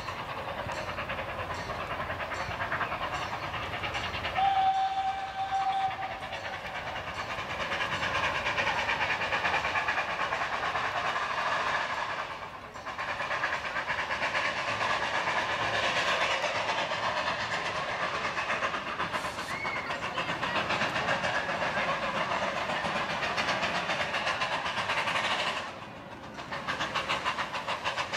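Steam locomotive of a 15-inch-gauge park railway: one steady whistle blast about five seconds in, over the continuous running noise of the approaching train, which dips briefly twice.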